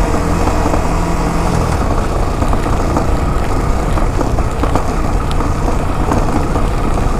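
Suzuki Gixxer's single-cylinder motorcycle engine running under way, mixed with heavy wind and road noise on the rider's microphone. A steady engine note is clear for the first couple of seconds, then fades into a rough, noisy rumble with scattered light knocks.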